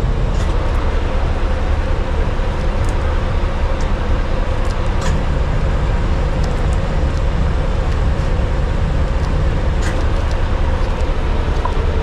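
Ice cream van's engine running steadily with a low rumble and hum. A few faint clicks sound over it.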